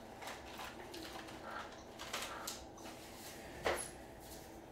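Faint handling noises: soft rustles and light taps, with a slightly louder brief scrape about three and a half seconds in.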